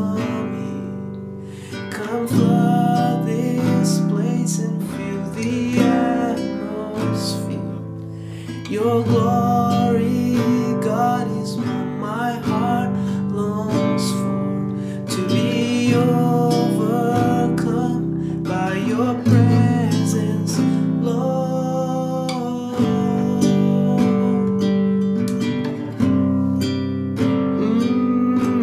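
A man singing while strumming a nylon-string classical guitar, with the echo of a tiled bathroom around both.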